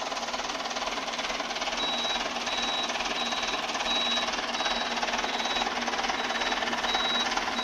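Tafe Gajraj 5900 DI tractor's diesel engine running steadily. From about two seconds in, a high beeping repeats about every 0.6 seconds: the turn-indicator flasher buzzer.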